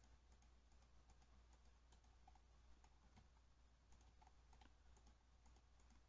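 Near silence: a faint low hum with light, irregular clicking at a computer, several clicks a second.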